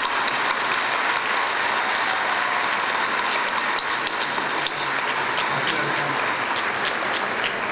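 Audience applauding steadily after a speech: a dense, even clatter of many hands clapping in a large hall.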